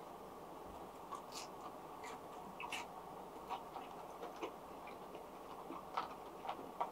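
Quiet eating sounds: faint chewing of fried chicken with small, irregular clicks from chopsticks and mouths against a steady low hiss of room noise.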